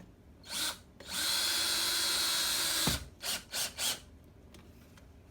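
Power drill driving a screw: a short spin, then a steady run of about two seconds, then three quick short pulses as the screw is seated.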